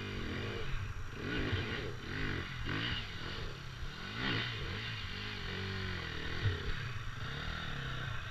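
Four-stroke dirt bike engine climbing a steep, loose slope, the throttle opened and closed over and over so the revs rise and fall several times.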